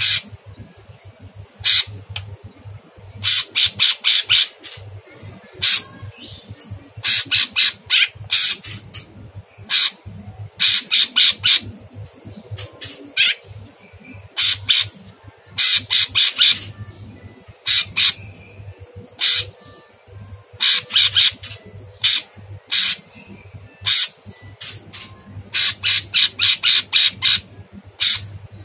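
Cucak cungkok leafbird singing a very rough, harsh song: quick runs of sharp, scratchy notes in clusters every second or two.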